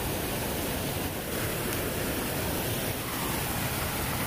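Steady rush of a waterfall and river current, an even wash of water noise.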